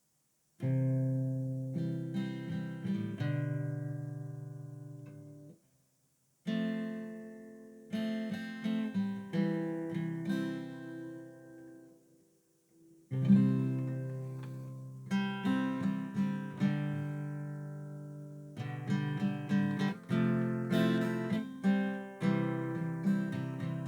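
Acoustic guitar playing an instrumental intro: strummed and picked chords that ring and fade, in phrases broken by two brief pauses.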